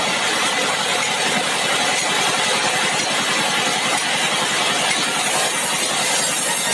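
Sawmill machinery running steadily, a continuous engine-driven noise with no breaks.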